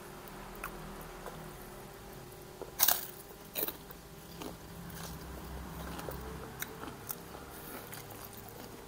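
A person eating fried rice with krupuk crackers by hand: chewing with crunchy bites, the two loudest crunches coming about three seconds in, among lighter clicks.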